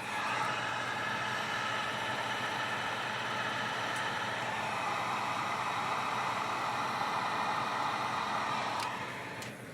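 Heat gun switched on with a click and blowing with a steady whirring hiss, then winding down near the end; it is shrinking heat-shrink tubing over a soldered wire splice.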